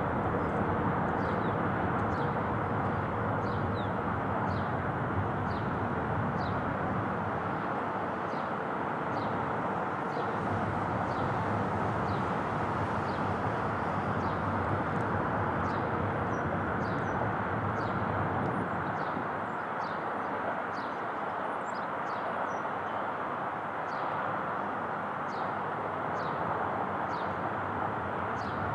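Steady roar of a distant airliner's jet engines on approach, with a bird repeating a short, high, downward-slurred chirp a little more than once a second.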